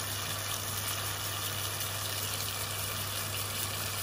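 Chopped tomato sauce simmering and sizzling in a stainless steel pan as it reduces, a steady even hiss with a low hum underneath.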